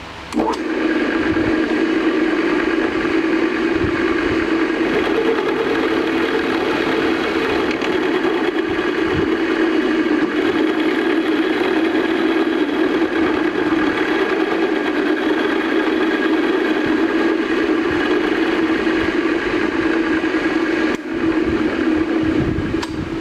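Small milling machine running steadily, its cutter taking light cuts to mill a flat on a round workpiece held in a V-block. The sound eases slightly near the end.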